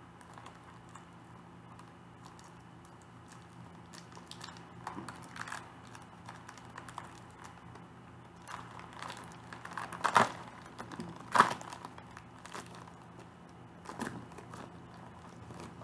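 Packaging being crinkled and torn open by hand: intermittent rustling, with a few louder crinkles about ten and eleven seconds in and another near the end.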